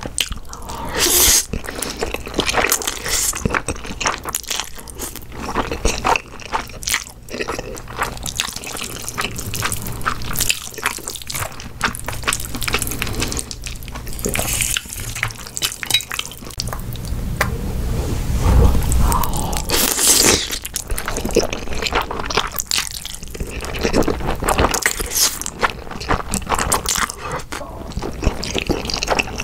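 Close-miked eating sounds: jjapaghetti black-bean noodles slurped and chewed with many small wet clicks and smacks, and some crunching bites of kimchi.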